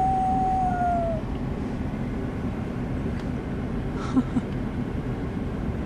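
Steady road and engine rumble inside a moving car's cabin. A long, steady high tone is heard for about the first second and drops slightly as it ends. A short knock comes about four seconds in.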